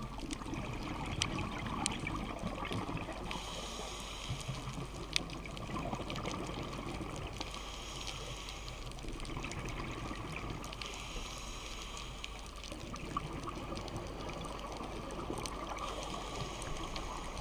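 Underwater ambience recorded through a dive camera's waterproof housing: a steady, muffled watery rushing with scattered faint clicks.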